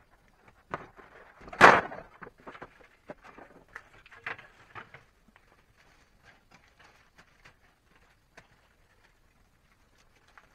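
Handling and knocking noises: one loud knock about a second and a half in, then a run of smaller clicks and scrapes that thin out to occasional faint ticks.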